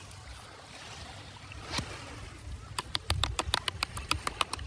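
Outdoor water ambience with a low wind rumble on the microphone. For the last two seconds there is a quick, irregular run of sharp clicks or small splashes, several a second.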